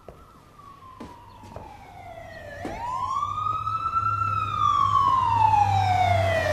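Ambulance siren wailing: a slow downward slide in pitch, then a quicker sweep up and another slow slide down, growing steadily louder as it approaches. A low engine rumble comes in underneath in the second half.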